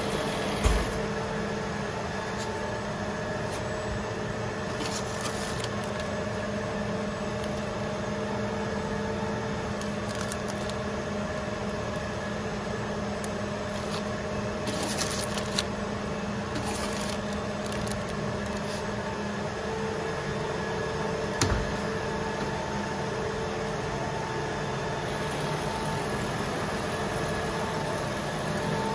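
Steady hum of running machinery with several held tones over a light hiss, and a few short knocks: one about a second in and another about two-thirds of the way through.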